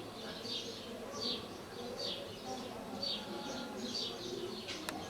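Small birds chirping, repeated short falling chirps about once a second, over a low murmur of distant voices. A single sharp click near the end.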